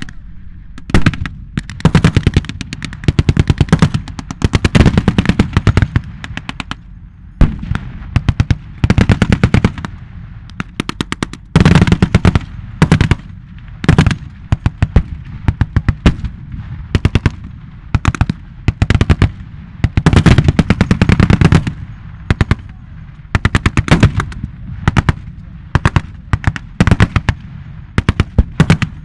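Repeated bursts of rapid machine-gun fire with blanks, each string lasting a second or two with short gaps between, overlapping from several guns, with a few single louder shots mixed in.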